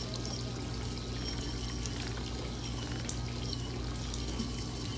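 Steady running water with a low hum from a pedicure spa tub, with two short sharp ticks about three and four seconds in.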